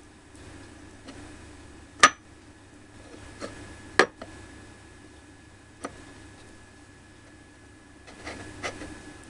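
Small sharp clicks and taps of miniature dishware being handled: tiny food pieces and fingers set down on a little ceramic plate and a glass dish, with light rubbing between. The loudest click comes about two seconds in, a second at about four seconds, and a few softer taps near the end.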